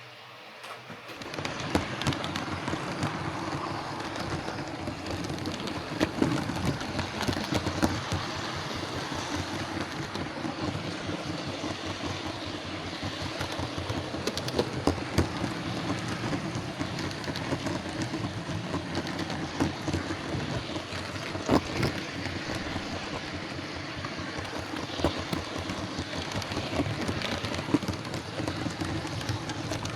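Hornby OO gauge LNER Class A1 model steam locomotive running on track: a steady whir of its motor and gears with wheels rattling on the rails and scattered clicks, starting about a second in. The motor, which had lifted and disengaged from the gears, is shimmed back into mesh and now drives the loco.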